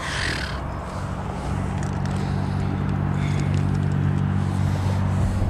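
Steady low drone of vehicle traffic on a road, swelling louder from about a second and a half in, with a brief rustle at the start.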